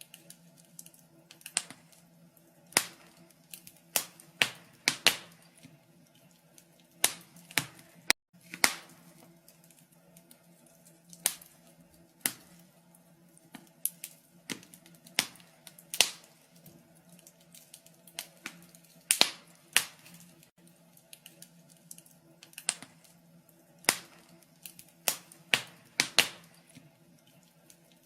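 Wood fire burning in a fireplace, crackling with irregular sharp pops and snaps, a few every second, over a faint steady low hum.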